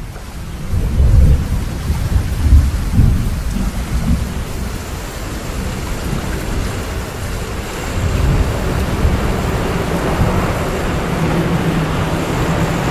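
Heavy rain with rolling thunder, loudest in the first few seconds. From about ten seconds in, the steady drone of a propeller aircraft's engines rises over the rain.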